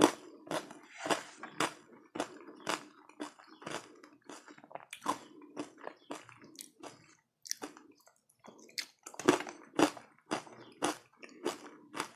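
Close-miked chewing of a crunchy mouthful, with sharp crunches at about two a second.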